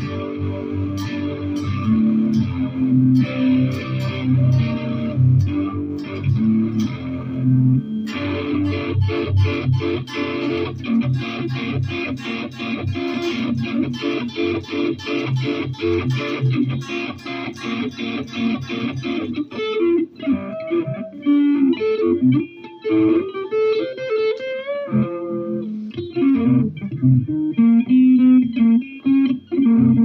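Electric guitar played solo, with no singing: repeated chords at first, then from about eight seconds a faster run of quickly picked notes, and from about twenty seconds single-note melody lines with bent, wavering notes.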